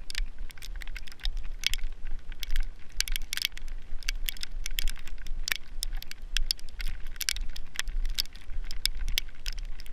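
Walking out in heavy falling snow: irregular crisp ticks and crackles over a low rumble of wind on the microphone.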